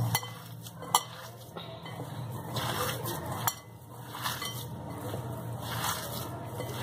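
Hand mixing and kneading a moist fish-and-potato mixture in a glass bowl: soft handling noise, with two sharp clicks against the glass, about a second in and again halfway through.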